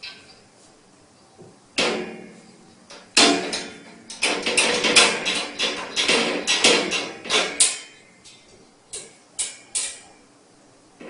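A rapid series of sharp knocks and rattling bangs, starting about two seconds in and thickest from about three to eight seconds, then three separate knocks near the end.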